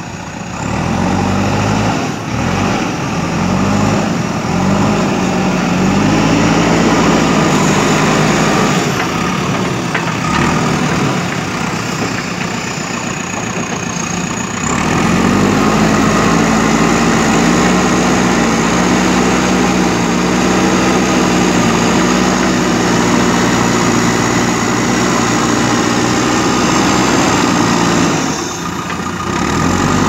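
JCB backhoe loader's diesel engine revving up in several short surges as the machine moves off. It then runs at high, steady revs under load while the front loader bucket digs into a pile of earth and lifts it, and the revs drop briefly near the end.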